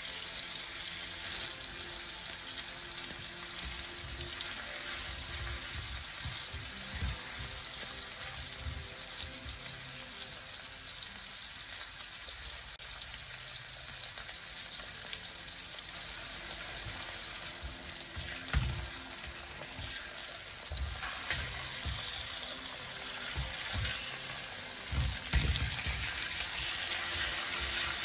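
Pork chops sizzling in oil in a frying pan, a steady hiss, with a few soft low thumps in the second half.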